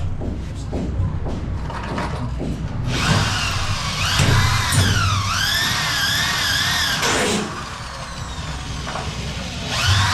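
Power drill boring holes through fibre-cement ceiling board into the steel frame for rivets, its pitch rising and falling as the bit bites. After a few light knocks it runs for about four seconds, stops, and starts again near the end.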